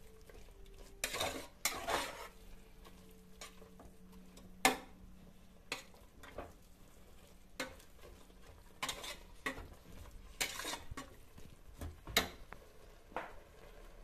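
Metal ladle stirring and scraping a thick frying masala in an aluminium pressure cooker, with about a dozen irregular scrapes and knocks against the pot over a light sizzle.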